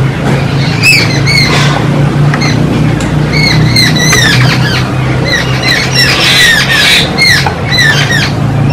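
A flock of jungle babblers squabbling: many short, harsh, down-slurred calls overlapping, getting busier past the middle. A steady low hum runs underneath.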